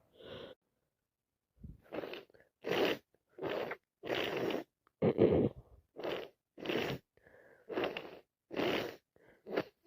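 A person with a head cold blowing her nose into a tissue held to her face: a run of about ten short, hard, snotty blows in a row.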